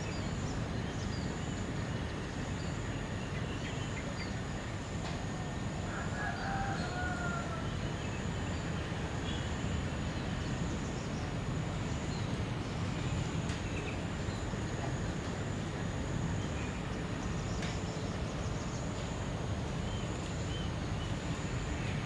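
Birds giving scattered short chirps, with one clearer, longer call about six seconds in, over a steady low rumble. A high insect trill pulses on and off throughout.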